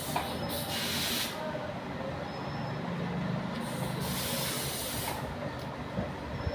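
Two hissing, scrubbing bursts, each about a second and a half long, as a brush works the inside of a petrol-wet Honda Activa carburettor body, over a steady low background hum.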